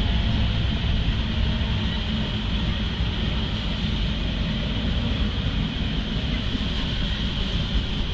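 A lashup of diesel freight locomotives rolling past, with a steady engine rumble and a constant hiss of wheels on the rails.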